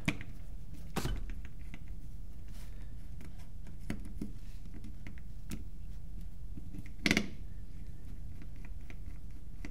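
Faint clicks and scrapes of a Phillips screwdriver turning out the small solenoid screws on a paintball marker, with one sharper click about seven seconds in, over a steady low hum.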